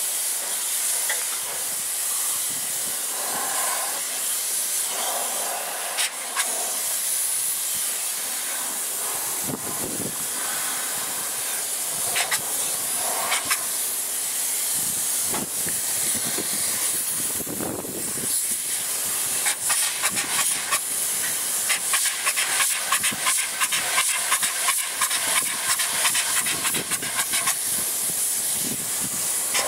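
Spray foam insulation gun hissing as it sprays polyurethane foam onto a wall, a steady high hiss that grows denser, with a rapid crackle, in the second half.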